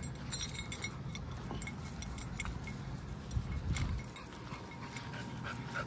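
Light metallic jingling and clinking, scattered small clicks throughout, over a low rumble of movement.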